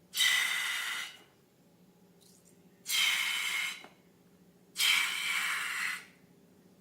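Three short bursts of hissing, each about a second long and starting suddenly, with quiet between them.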